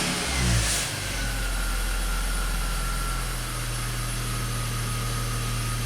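BMW X5's six-cylinder engine just after starting: a short loud flare that settles within about a second into a steady idle. A whine falls in pitch over the first few seconds as the idle comes down, then holds steady.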